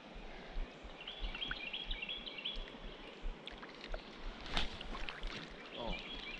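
Creek water running, with a burst of splashing and sloshing about two-thirds of the way through as a person wades into chest-deep water. A songbird chirps in quick repeated phrases.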